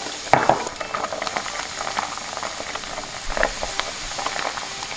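Batter-coated wrasse pieces deep-frying for tempura in hot oil: a steady sizzle full of crackling pops. A sharper, louder burst of crackle comes about a third of a second in.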